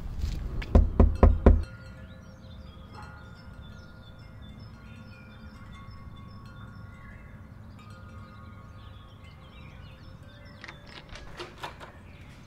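Metal tube wind chime ringing, several long overlapping tones. A few heavy thumps come before it at the start, and a few knocks near the end.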